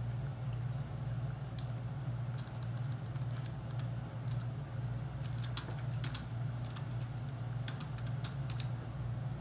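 Typing on a computer keyboard: scattered key clicks that come in quick runs about halfway through and again near the end, over a steady low hum.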